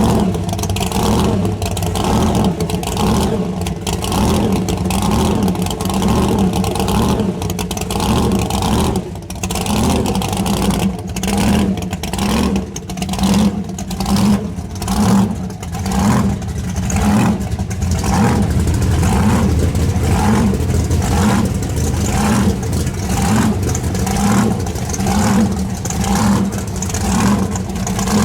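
Supercharged drag-racing Camaro engine running loud, its sound swelling and dipping in a steady rhythm a little more than once a second from about ten seconds in.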